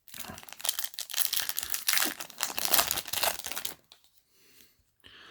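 Foil wrapper of a Yu-Gi-Oh! booster pack crinkling and tearing as it is handled and opened, a dense crackle lasting nearly four seconds before it stops.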